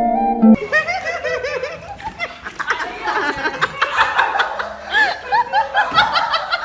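Several voices laughing and chuckling, overlapping one another. Plucked-string music cuts off about half a second in.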